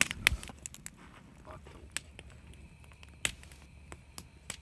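Campfire crackling: irregular sharp pops and snaps, the loudest near the start and about three seconds in.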